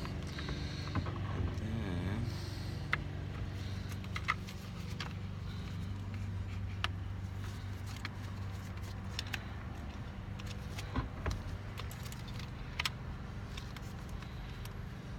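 Scattered small clicks and light rattles of wiring and plastic parts being handled while the wires are guided through a steering column, over a steady low hum.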